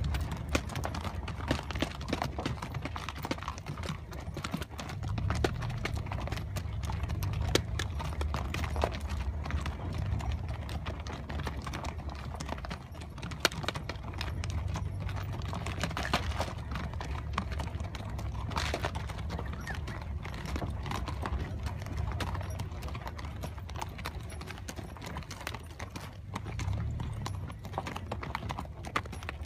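Hooves of several ridden horses clip-clopping at a walk over sandy ground, irregular sharp hoof strikes over a steady low rumble.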